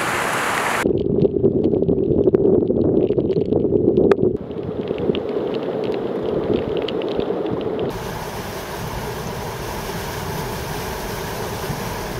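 Rushing stormwater from hurricane flooding, with several cuts. About a second in it changes to floodwater pouring over a curb into a flooded street, a steady roar with small splashes. Near the end it gives way to a steadier rush of a vehicle driving along a flooded road.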